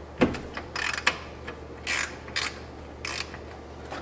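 Hands working at a car's factory horn and its bracket and wiring: a series of short plastic and metal clicks and scrapes, the loudest about a quarter second in.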